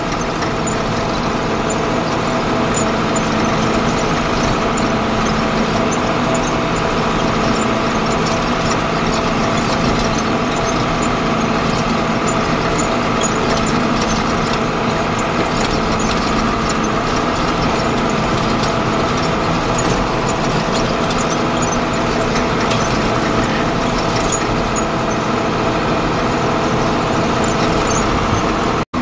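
Farm tractor's diesel engine running at a steady road speed, heard from inside the cab, with scattered light rattling clicks.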